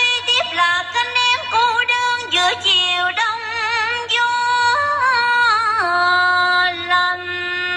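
A woman's recorded voice singing a cải lương (Vietnamese reformed opera) line, sliding through ornamented turns and holding long wavering notes, with a long steady note held near the end.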